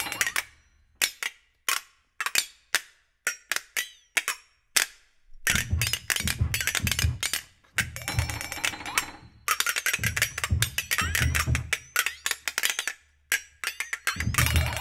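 Two flexatones played in sharp, irregular accented clicks and short rattles, with gaps between them. Low thuds come in and out in several stretches, with the piano part.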